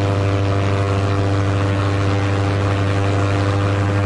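Propeller plane's engine sound effect: a steady, unchanging drone.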